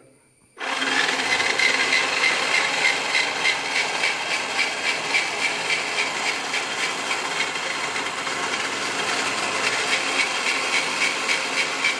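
Homemade vegetable-slicing machine starting about half a second in and running steadily while slicing onions, a continuous mechanical noise with a regular beat of two or three pulses a second.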